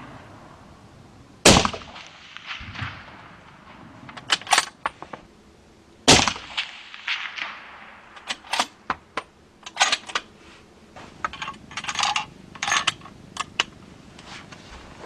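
Two shots from a suppressed .308 Winchester rifle, about four and a half seconds apart, each a sharp report with a short echoing tail. A string of lighter sharp clicks and knocks follows between and after them.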